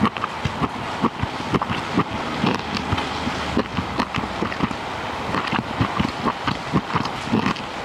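Food deep-frying in hot oil: a steady sizzle with dense, irregular crackles and pops.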